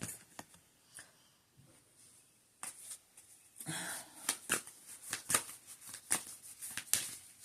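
A deck of oracle cards handled and shuffled by hand: a few isolated card clicks, a short lull, then a steady run of quick card snaps and riffling clicks through the second half.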